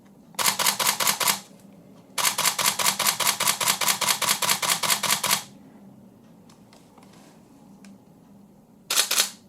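Canon 5D Mark III shutter and mirror firing in continuous drive, about six shots a second: a burst of about a second, a longer burst of about three seconds, then a short burst near the end. The camera shooting normally after its power fault has been repaired.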